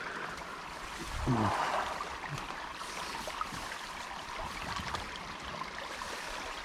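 Water sloshing around legs wading through a shallow creek, with one louder slosh about a second in, over the steady trickle of the stream.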